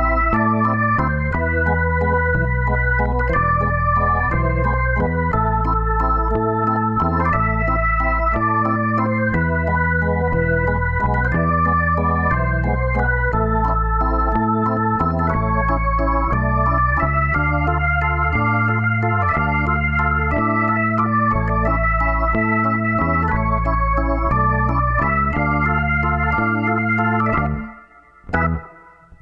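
Background music played on an organ-like electronic keyboard over a stepping bass line. It drops out briefly near the end and comes back.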